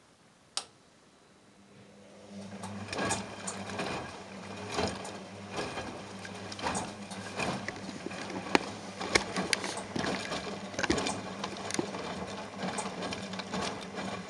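A click, then a front-loading washing machine's drum starts turning about two seconds in: a steady motor hum, with the splashing and soft thuds of a wet plush toy tumbling in soapy water about once a second.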